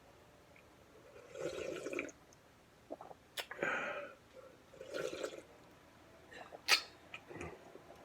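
Slurping pho broth and noodles from the bowl, three half-second slurps, with a few sharp clicks of a utensil against the bowl.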